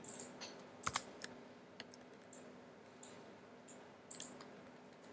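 Faint keystrokes on a computer keyboard: a quick run of key presses in the first second or so, then a few scattered single clicks.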